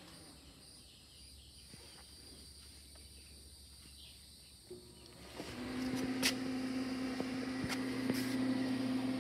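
Plug pushed into an extension cord about five seconds in, then an old Craftsman 110-volt welder powering up with a steady electrical hum and a few sharp clicks.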